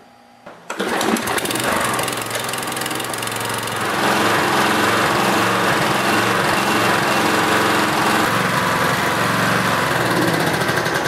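Toro Recycler lawnmower's Briggs & Stratton 190 cc single-cylinder engine starting less than a second in and running steadily. It gets louder from about four seconds in.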